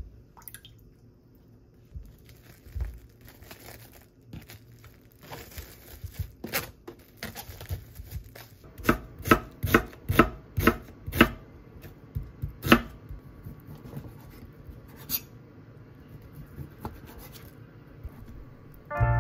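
Kitchen knife chopping an onion on a wooden cutting board: a run of sharp knocks of the blade on the board, about two a second, loudest around the middle, then a few fainter cuts.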